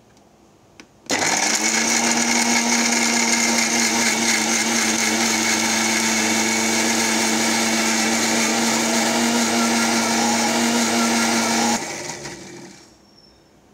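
Elgi Ultra 750-watt mixer grinder switched on with a click, its motor and blades in the stainless steel jar running at a steady high speed with a constant whine for about ten seconds. It then cuts off and spins down over about a second.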